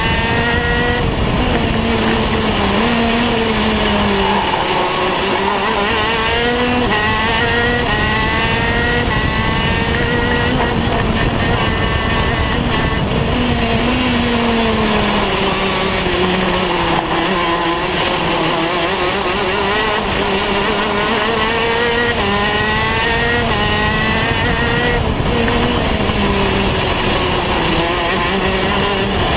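125cc two-stroke KZ2 shifter kart engine at racing speed, heard onboard: its pitch climbs as it accelerates and drops several times as the kart slows for corners.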